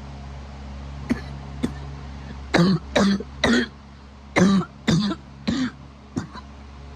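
A person coughing: two short catches about a second in, then two runs of three coughs and a last faint one near the end, over a steady low hum.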